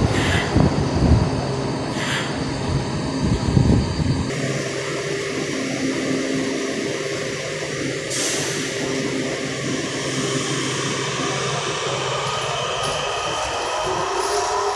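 Kawasaki 7000-series metro train pulling out of the station, with wheel-on-rail noise and the electric traction motors whining, rising in pitch as it gathers speed near the end. A few low thumps come in the first few seconds.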